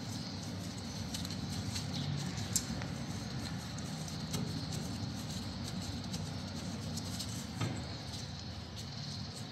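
A few faint metallic clicks and light handling noises from a brake caliper bolt being taken out by hand and the caliper being gripped. Under them runs a steady low hum.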